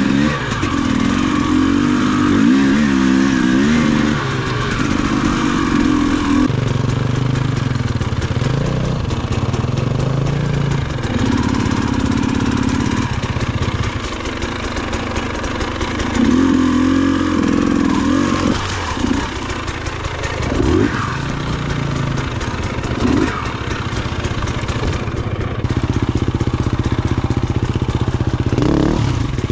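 Off-road motorcycle engine being ridden, its note rising and falling over and over as the throttle is opened and closed.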